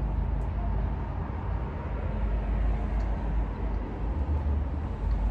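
Two people shotgunning cans of beer, gulping them down, over a steady low rumble.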